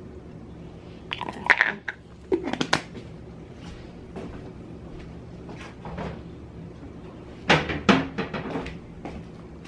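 Kitchen handling noises: clattering and knocks of things being picked up and set down, in three short bursts, about a second and a half in, a second later, and loudest near the end, over a low steady hum. The blender is not running.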